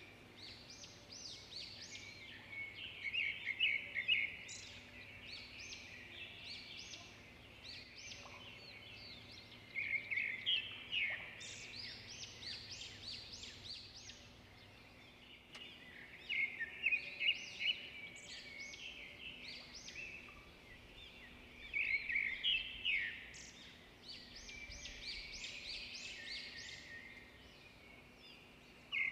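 Birds chirping in short, rapid bursts every few seconds.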